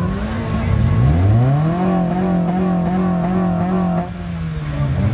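A modified car's engine revved twice in place: a short rise that falls back, then a second rise held steady at high revs for about two seconds before dropping off about four seconds in.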